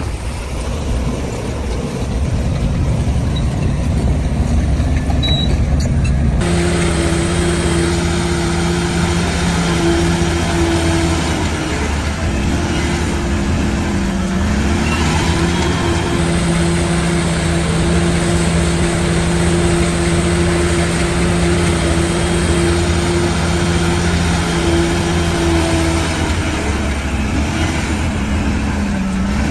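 Heavy diesel construction machinery running. About six seconds in the sound changes abruptly and a steady droning hum joins the engine noise, lasting most of the rest.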